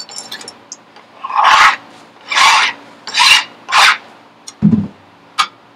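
Four rasping strokes of something being rubbed or scraped by hand, each about half a second long, then a low thump and a short click near the end.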